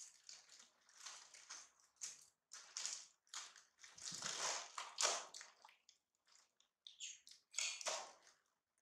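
Clear plastic bag of dried banana chips crinkling and rustling in irregular bursts as hands open it and reach in, the chips rattling inside.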